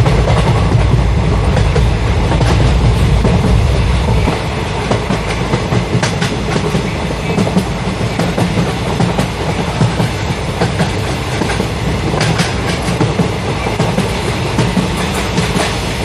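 A train running on rails: a steady rumble with repeated clicks of the wheels over the rail joints. The deep low rumble eases off about four seconds in.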